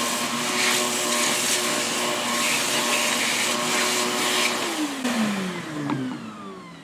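Shop vacuum running steadily as its hose nozzle sucks debris out of a cut floor-vent opening. About four and a half seconds in it is switched off and its motor whine falls away as it spins down.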